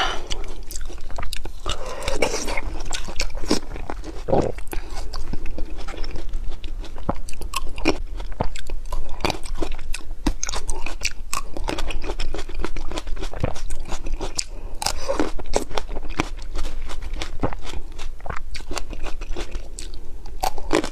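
Close-up eating sounds of frozen lychees: a run of crisp, crunchy bites and chewing, dense and irregular, sped up.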